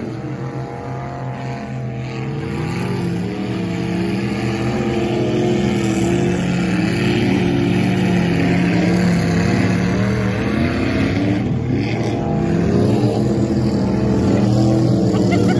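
Lifted mud-bog truck's engine revving hard as it ploughs through a deep mud pit. Its pitch rises and falls again and again as the throttle is worked, and it grows louder toward the end.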